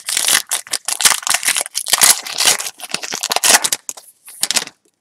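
A trading-card pack's wrapper crinkling and tearing as it is ripped open, a rapid run of crackles that stops near the end.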